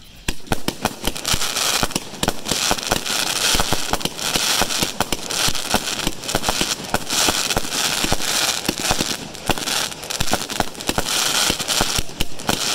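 A 130-shot, 3/4-inch-bore consumer firework cake (the 500g "Crazy Rich Asians") firing a rapid string of shots, several a second, over a steady high hiss.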